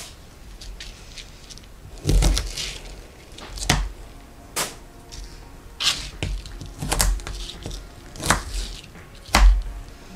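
A kitchen knife chopping broccoli on a thin plastic cutting board laid on a countertop. The knocks come irregularly, about seven in all, roughly a second or so apart.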